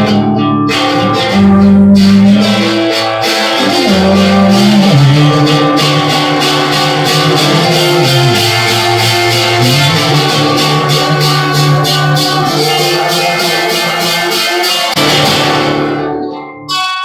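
Instrumental music led by a strummed acoustic guitar, with a shaker or tambourine keeping the beat; it thins out about fifteen seconds in and stops near the end.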